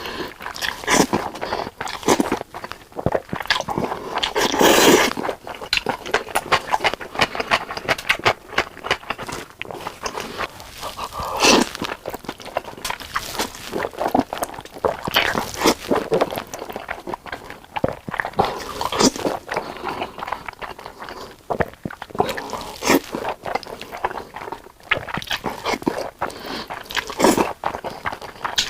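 Close-miked eating sounds: a person chewing, smacking and biting food, with crunches and a few louder wet swells scattered through.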